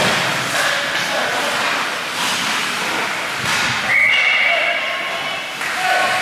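Ice rink crowd noise: spectators' voices and shouts in a hall. A sharp, steady whistle blast comes about four seconds in and lasts about a second and a half.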